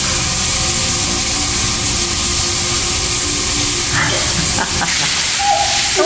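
Overhead rain shower running: water spraying steadily down onto a person and a tiled floor, an even loud hiss.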